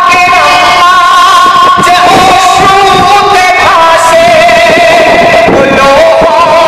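A man singing a Bengali gojol (Islamic devotional song) into a handheld microphone, holding long wavering notes that step from pitch to pitch.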